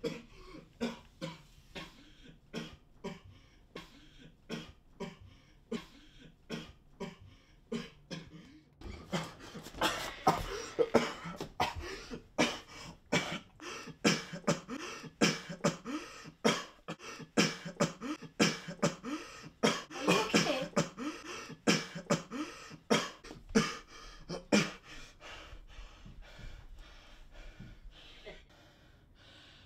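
A man's laboured, ragged breathing and coughing: short harsh breaths about two a second, faint at first, then louder with strained vocal groans through the middle, easing off near the end.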